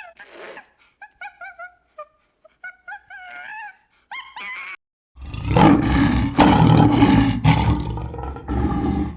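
A series of short pitched animal calls, some with a wavering glide, then about five seconds in a sudden loud, rough animal roar that carries on to the end.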